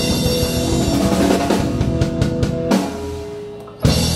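Live rock band of electric guitar, bass guitar and drum kit playing the close of a song: a drum fill past the middle, a hit that rings down and fades, then a sudden loud final chord struck with the drums near the end, left ringing.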